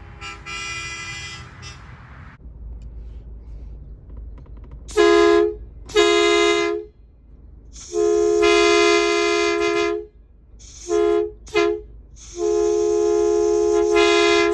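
Hadley H00910CA "Bully" truck horn sounding a two-note chord in a series of blasts. A softer blast comes first, then two short blasts, a long one of about two seconds, two quick toots, and another long blast that is still sounding at the end.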